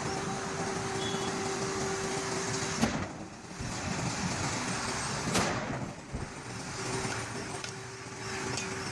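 Steady road vehicle noise with a faint steady hum, broken by two sharp bangs about two and a half seconds apart.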